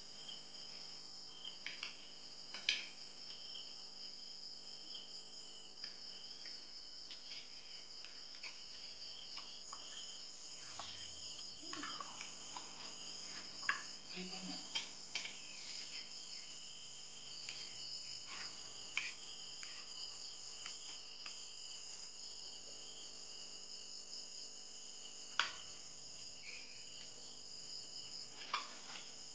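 Steady high-pitched chorus of insects, with a few sharp taps or clicks scattered through it.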